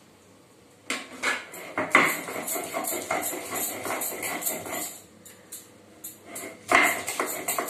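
Kitchen knife chopping garlic on a wooden chopping board: fast, irregular knocks, with a short pause about five seconds in and a few louder knocks near the end.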